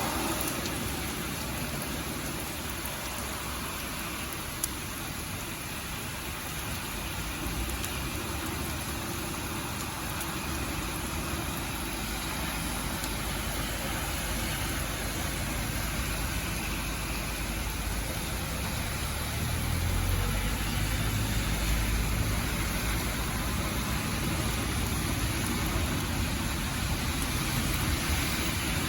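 Steady rain falling, with the low rumble of a motor vehicle growing louder about twenty seconds in.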